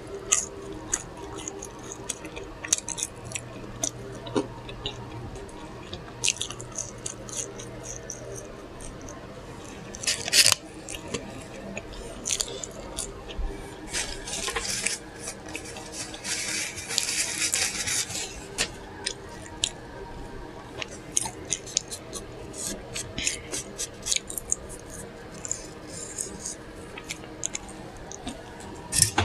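Close-miked chewing and wet lip smacking of a burger, with sharp mouth clicks scattered throughout and a louder noisy stretch of about two seconds a little past halfway.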